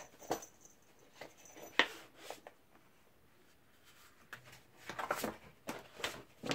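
Large sheets of scrapbooking paper rustling and sliding as they are lifted and leafed through by hand. There is one sharp flap about two seconds in and more rustling toward the end.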